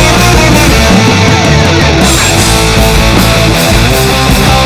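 Loud rock music with electric guitar.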